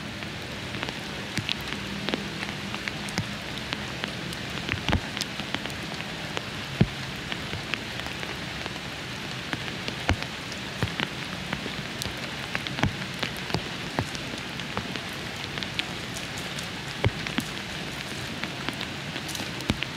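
Steady rain falling: a continuous hiss broken by frequent irregular sharp taps of raindrops landing close by.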